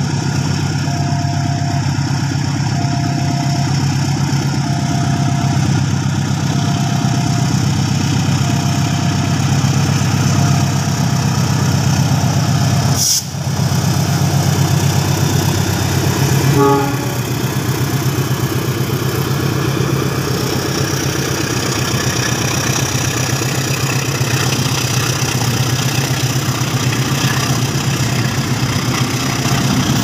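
A diesel locomotive hauling a container freight train runs past with a steady low engine drone, while the level-crossing warning repeats a short tone about every two seconds. After the locomotive goes by, about halfway through, the loaded container wagons roll and rattle past on the rails.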